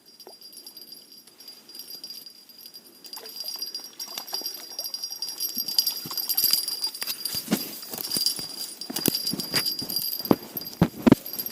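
Rustling and handling noises with sharp clicks and knocks, growing busier in the second half, as a freshly caught burbot and its tackle are handled on the bank. A steady high-pitched jingling or ringing runs underneath.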